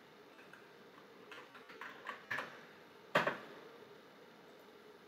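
Computer keyboard typing: a few scattered keystrokes between about one and two and a half seconds in, then one louder key strike a little after three seconds.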